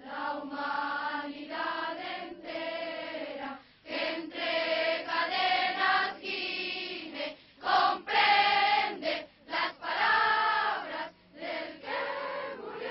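Choir of schoolchildren and teenagers singing together, held phrases broken by short pauses.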